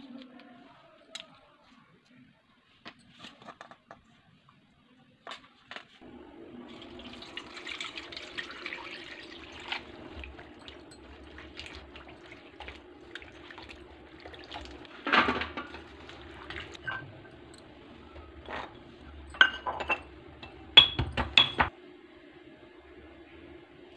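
Faint clicks of broad bean pods being trimmed with a knife, then hands sloshing the pods in a steel bowl of water over a steady low hum. A loud knock comes about halfway, and a quick run of sharp clinks of steel dishes near the end.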